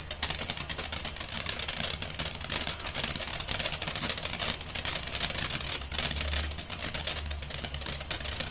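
Phantom 'Hollow Blue' consumer firework fountain burning: a steady hiss of spraying sparks, laced with fast, dense crackling.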